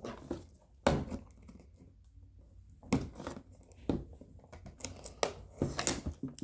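Toy packaging being worked open by hand: scattered crinkles, clicks and tearing of plastic and cardboard, at irregular moments and busier near the end.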